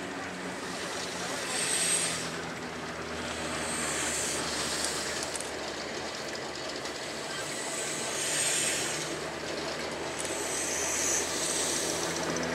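Class 09 diesel shunter's English Electric six-cylinder engine running steadily as it slowly hauls a steam locomotive along yard track, with spells of hissing.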